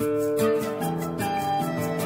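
Instrumental background music, a guitar-like plucked-string melody moving through a string of notes at a steady level.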